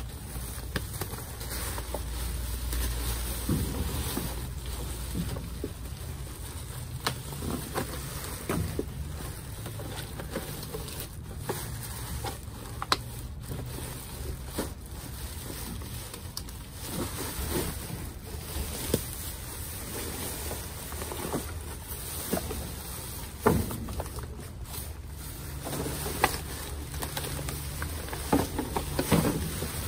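Rummaging through trash in a dumpster: scattered knocks and clicks of items being moved and handled, over a steady low rumble.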